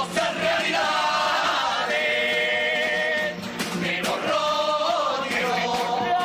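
Carnival chirigota group playing a wordless melody in unison on kazoos (pitos), backed by guitar and bass drum.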